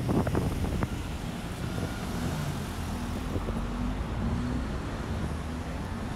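City street traffic noise: a steady rumble of passing road vehicles with wind buffeting the microphone, and a few short knocks in the first second.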